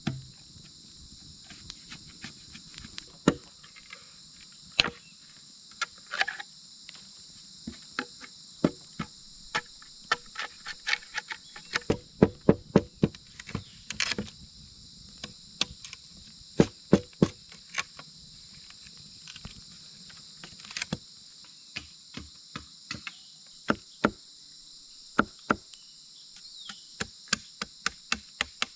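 Machete blade chopping and splitting green bamboo: irregular sharp knocks, with a quick run of blows about twelve seconds in. A steady high drone of insects runs underneath.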